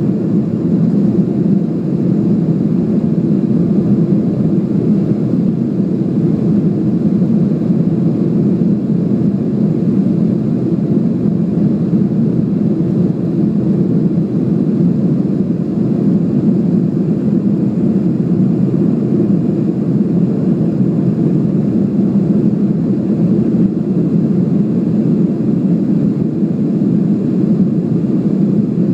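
Steady cabin noise of a jet airliner climbing after takeoff, heard from inside the cabin: a constant low drone of engines and airflow that does not change.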